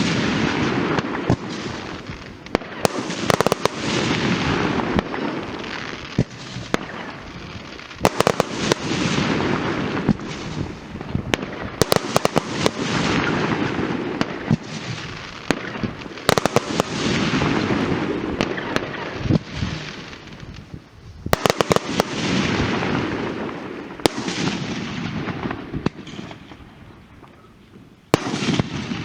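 Funke fireworks going off: clusters of sharp bangs about every four to five seconds, each followed by a fading crackle.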